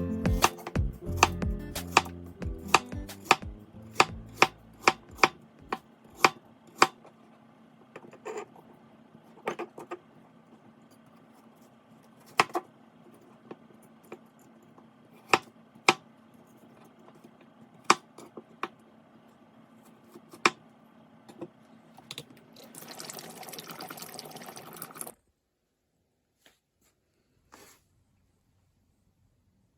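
Kitchen knife chopping on a cutting board: quick, even strokes about twice a second for the first several seconds, then occasional single knocks over a steady low hum. Near the end a couple of seconds of hiss, which cuts off suddenly.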